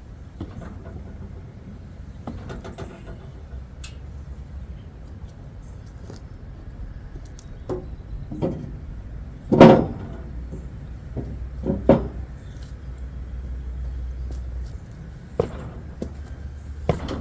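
A log being handled onto a sawmill: a series of sharp clanks and knocks, the loudest about ten seconds in, over a low steady rumble.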